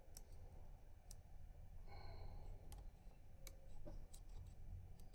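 Faint, sharp clicks at irregular intervals from a rotor pick being worked inside a six-pin FAC pin-tumbler lock.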